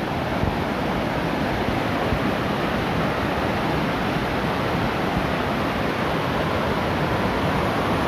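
White water rushing steadily down a small rocky waterfall cascade, an even, unbroken rush of falling water.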